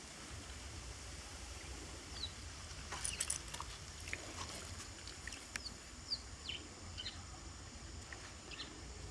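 Birds chirping outdoors in short, scattered, high falling chirps, with a few sharp clicks about three seconds in, over a steady low wind rumble.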